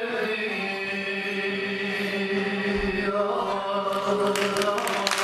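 A Turkish folk song ending on a long held sung note over bağlama (long-necked saz). Applause breaks out about four seconds in and grows to the end.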